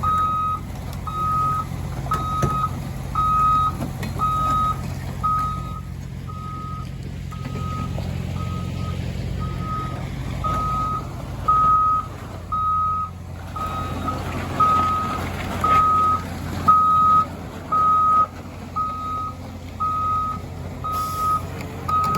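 Backup alarm of a heavy vehicle beeping steadily, a little more than once a second, with a diesel engine running underneath.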